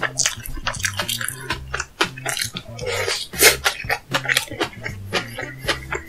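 Background music with a repeating bass line, over close-miked eating sounds: irregular chewing and mouth smacks, with a louder noisy burst about three and a half seconds in.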